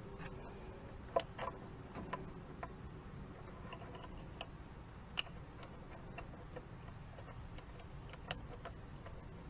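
Scattered sharp clicks and taps, about ten at irregular intervals, of hoses and their plastic clips being snapped into place by hand on an engine.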